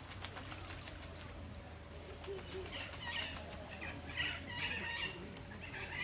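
Birds chirping and calling in quick, repeated short phrases, starting about halfway through and continuing, over a faint steady low hum.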